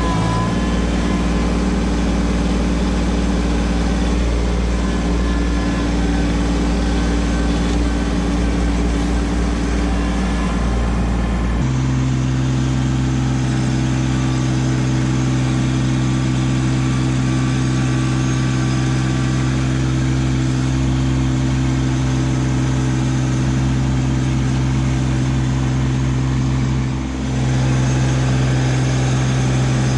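Kubota LX2610 compact tractor's diesel engine running steadily at a constant speed while it works its front loader. The engine's tone changes abruptly about a third of the way in.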